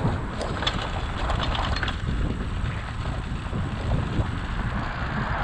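Canyon Endurace CF SLX carbon road bike rattling and juddering over cobblestone paving, with wind buffeting the microphone. A burst of sharp rattles comes in the first two seconds.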